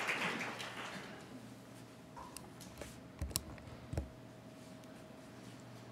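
Audience applause fading out over the first second or so. Then a few knocks and clicks of a lectern microphone being handled, three or so seconds in and again at four seconds.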